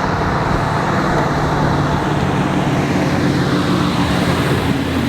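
Car engine and exhaust passing by in first gear at part throttle, not floored, with a steady engine note.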